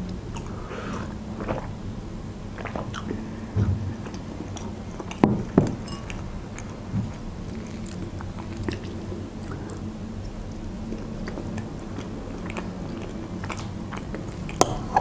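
Close-miked eating sounds: chewing and mouth sounds from someone eating chocolate cake, with a sip from a mug near the start. A few sharp clicks of a metal fork against a plate, the clearest about five seconds in and just before the end.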